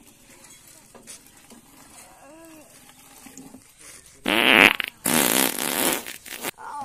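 Fart sound in two loud blasts: a short one about four seconds in, then a longer one lasting about a second and a half.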